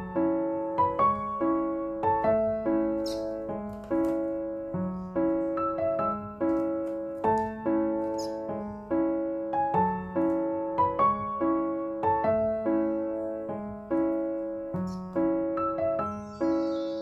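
Background piano music: a gentle, repeating pattern of struck notes that ring and fade.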